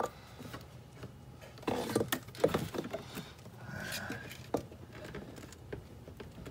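Scattered small clicks, taps and rustles from hands working wiring and plastic parts inside a car door, with a cluster of louder knocks about two seconds in.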